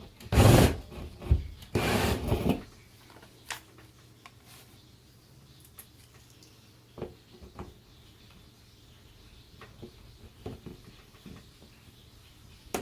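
Dremel rotary tool grinding into the drywall ceiling in two short bursts of about a second each, widening a drilled hole so a toggle bolt will fit. Then a faint low hum with scattered small clicks and knocks of handling.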